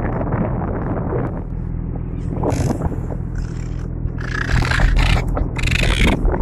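A fishing boat's engine running with a steady low hum. Three short, harsh bursts sound over it about two and a half, four and a half and six seconds in.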